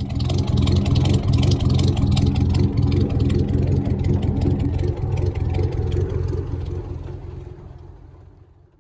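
A powerful engine running hard with a rapid, even pulse. It fades in at the start, holds steady, and dies away over the last three seconds.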